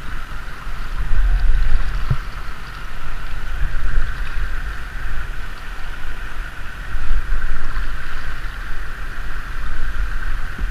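Canoe paddles dipping and splashing as a loaded tandem canoe is paddled. Over it runs a steady rush of moving river water, and wind rumbles unevenly on the microphone.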